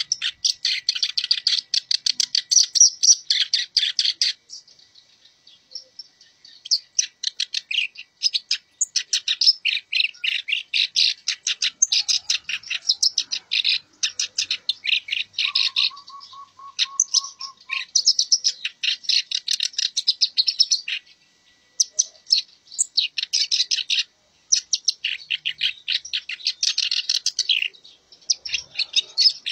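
Black-browed reed warbler (kerak basi alis hitam) singing continuously: fast, chattering runs of high notes in phrases a few seconds long, separated by short pauses. Midway through there is one lower, even buzzing trill lasting about two seconds.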